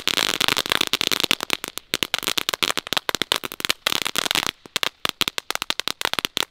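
Knetterlint, a Category 1 crackling-ribbon firework, burning along a wire, going off in a fast, dense run of small sharp cracks that thins to scattered pops after about four and a half seconds.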